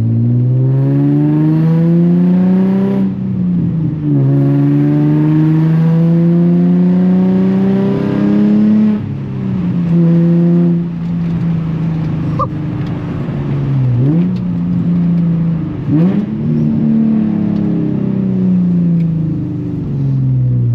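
Nissan 350Z's 3.5-litre V6, run with test pipes, pulling hard through the gears. Its pitch climbs, drops at a shift about three seconds in, then climbs again for several more seconds before falling off. Later come two quick throttle blips and the engine slows down. It is really loud.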